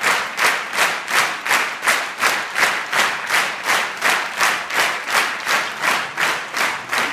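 Theatre audience clapping in unison, a steady rhythm of about three claps a second.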